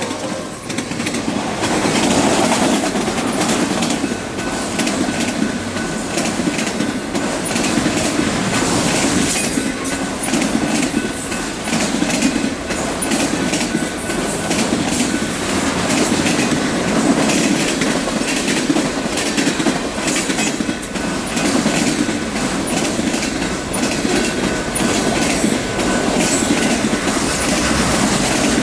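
Freight cars of a passing Union Pacific train rolling by at track speed: steady rumble and rush with a regular clickety-clack of wheels over rail joints and a faint steady high wheel squeal.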